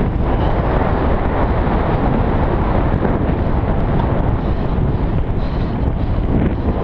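Heavy wind buffeting on the microphone of a rider-mounted camera as a mountain bike rolls fast along a dirt trail, mixed with the rumble of knobby tyres on dirt. A few light rattles near the end.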